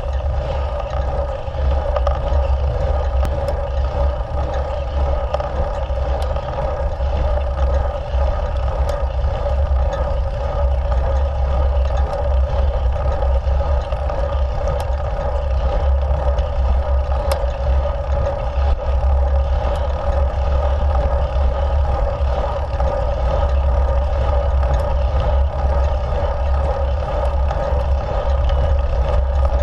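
Steady low rumble with a droning hum from a bicycle ride as heard through a camera mounted on the handlebars of a road bike climbing a paved road: road vibration and buffeting on the mic, with a few faint clicks.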